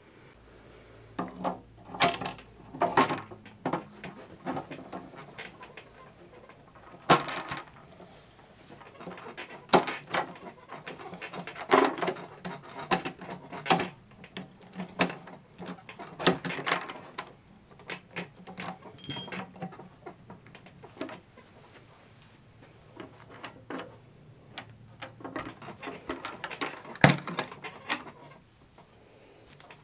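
Steel ammo can and keyed cable locks being handled: irregular metallic clicks, clanks and rattles as the lock cables are threaded through the lid latch and the lock is fastened, with a sharper clank now and then.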